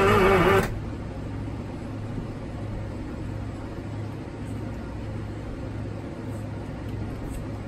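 Inline six-cylinder Detroit Diesel 6-71 being cranked over on its starter with the fuel rack held off, a loud wavering whine that stops abruptly less than a second in. The cranking is only to prime fuel through the head, so the engine does not fire. A steady low hum follows.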